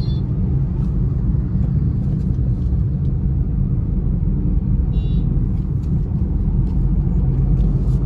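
Steady low rumble of a car driving at highway speed, heard from inside the cabin: engine, tyre and road noise together. A brief high tone sounds about five seconds in.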